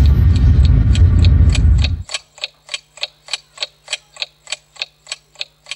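Ticking-clock sound effect used as a game timer: quick, even ticks, about three a second. For the first two seconds a loud low rumble runs under the ticks, then cuts off suddenly, and the ticks go on alone over a faint low hum.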